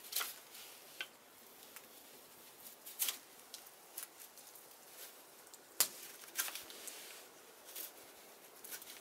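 Mora carbon-steel knife shaving thin curls off the face of a flat spruce spoon blank, smoothing it flat: short scraping cuts at an uneven pace, roughly one every second.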